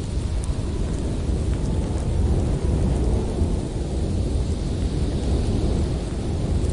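Strong blizzard wind blowing through a forest: a deep, steady rumble with a fainter hiss above it, swelling slightly about two seconds in.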